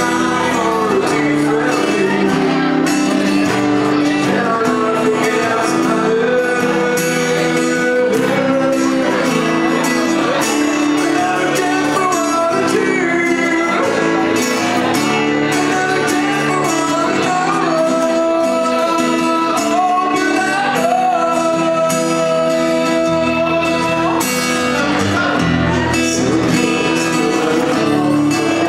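Two acoustic guitars strummed together while a man sings the melody, a live acoustic song performance.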